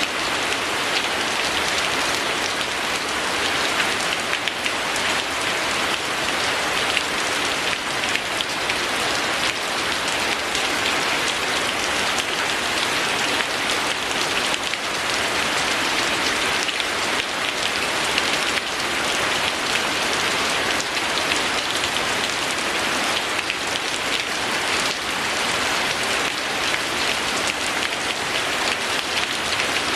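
Steady, gentle rain falling, a dense, even patter of drops with no let-up.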